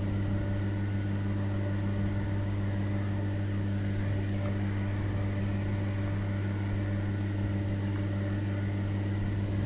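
Steady low mechanical hum with a light hiss from a commercial wok station's burner and kitchen machinery, with the wok's oil heating and not yet sizzling.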